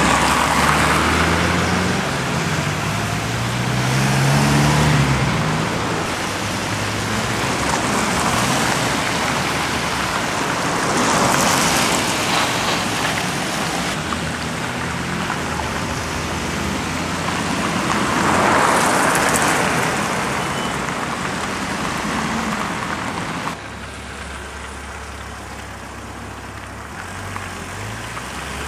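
Road traffic on a wet, slushy street: cars pass one after another with tyre hiss on the wet asphalt. About four seconds in, an engine rises in pitch as it accelerates. The traffic sound is quieter for the last few seconds.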